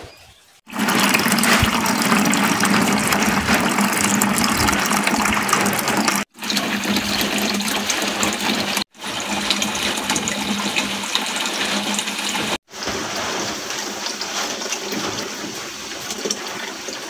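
Running water, a steady rush that is cut off sharply and resumes three times.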